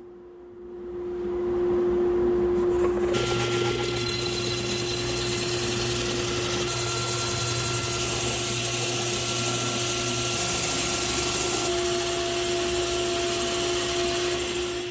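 Table saw running while a cordless drill spins a square wooden blank through a dowel-making jig, the saw blade shaving it round. The level climbs over the first two seconds, and the steady cutting noise starts about three seconds in.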